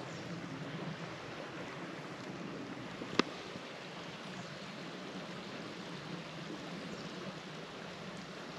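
Mountain creek water running in a steady wash, with one sharp click about three seconds in.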